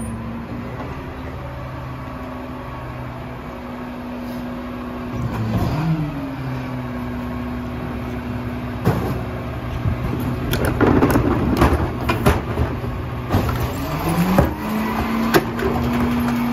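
Mack LR McNeilus rear-loader garbage truck's engine running at idle. About halfway in, recyclables and cardboard are thrown and tipped into the rear hopper, with a run of knocks and clattering. Near the end the engine steps up to a steady higher speed as the cart tipper is worked.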